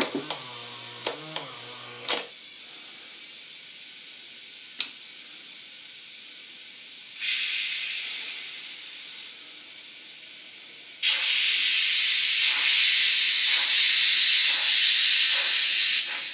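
Sound of an N-scale model steam locomotive: a steam whistle blows for about two seconds, a single click follows, then a hiss of steam starts about seven seconds in and fades. From about eleven seconds a loud, steady steam hiss with regular chuffs sets in as the locomotive drives off the turntable.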